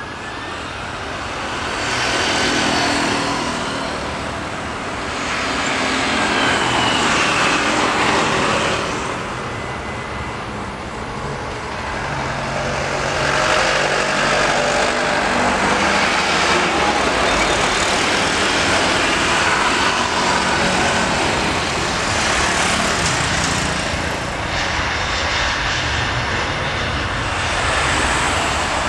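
Airbus A330-200's twin jet engines at takeoff power during the takeoff roll: a loud, continuous rush of jet noise that swells and ebbs, with a faint whine in it.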